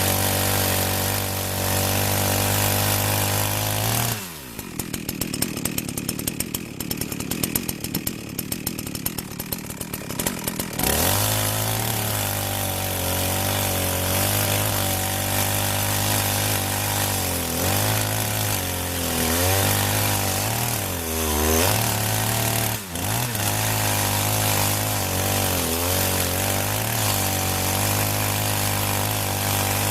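Gas chainsaw engine running at high revs while cutting firewood logs, its pitch sagging and recovering under load. About four seconds in it drops to a rough idle for several seconds, then is revved back up and cuts again.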